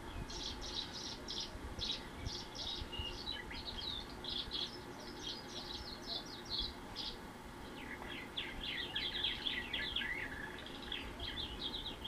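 Songbirds singing: quick runs of short, high chirps and trills in repeated phrases, played through a television's speaker. The song eases off about seven seconds in and picks up again a second later.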